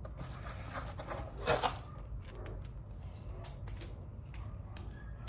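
Rustling, then a run of light clicks and taps from hands handling a newly unboxed grip trainer and its parts.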